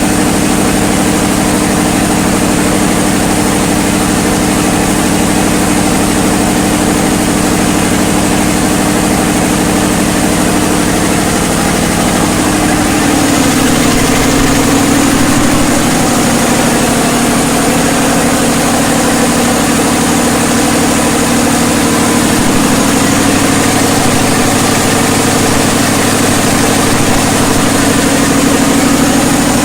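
A 500 kVA FG Wilson diesel generator running steadily and loudly, a constant engine drone with a hum. About 13 seconds in, one of its tones shifts slightly in pitch and the sound grows a little louder.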